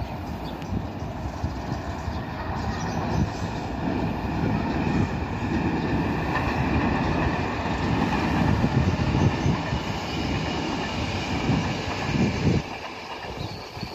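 CP Class 5600 electric locomotive hauling an Intercidades passenger train past: a steady rumble of wheels on rail and pointwork with a faint high wheel squeal above it, swelling toward the middle and dropping off suddenly near the end.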